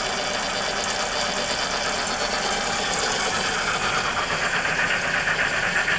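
Motor drive assembly of a ride-on electric locomotive running with its drive turning, mixed with a steady engine-like sound from the locomotive's sound-system speaker. The upper part of the sound grows stronger about four and a half seconds in.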